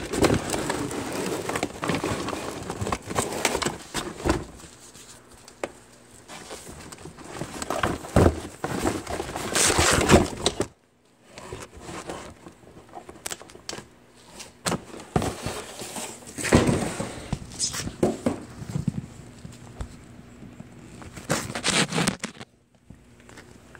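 Cardboard box being jumped on and crushed, heard from inside the box: irregular thumps with crumpling, crackling cardboard, and a brief pause about halfway through.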